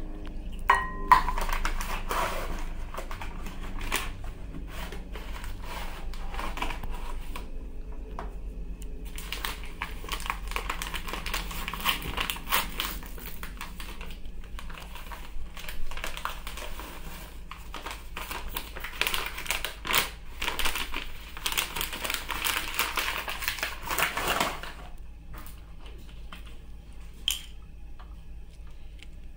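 Paper cake-mix bag crinkling and rustling as it is torn open and shaken out over a glass mixing bowl, strongest from about ten seconds in until it stops near the end. A sharp tap about a second in.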